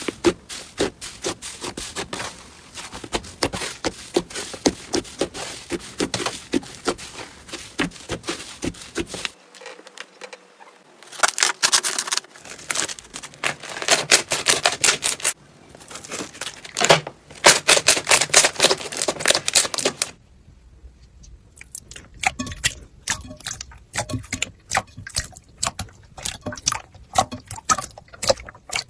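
Slime being squeezed and worked by hand, making dense runs of crackling clicks and pops. The sound changes abruptly three times from one clip to the next.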